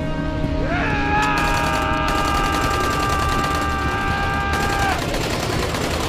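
Rapid automatic gunfire fired in a long burst. Over it, a man gives one long yell that rises at the start and breaks off about five seconds in, with film score underneath.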